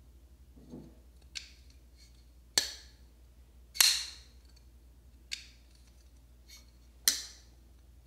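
WE Diatomic folding knife's steel blade snapping open and shut: a series of sharp metallic clicks as it swings out and closes. Three of them are loud, about 2.5, 4 and 7 seconds in, with softer clicks in between.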